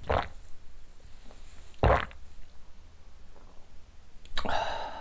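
A man knocking back a shot of soju and reacting: a brief sound as he drinks, a louder burst of breath about two seconds in, and a short voiced exhale just after four seconds.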